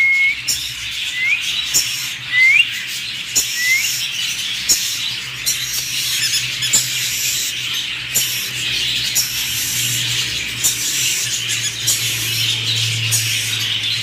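Many caged pet parrots chattering and chirping together in a dense, continuous high twittering. Three short rising whistled calls stand out in the first few seconds.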